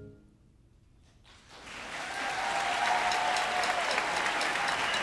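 The concert band's last chord dies away, and after about a second and a half of hush an audience breaks into applause that swells and then holds steady.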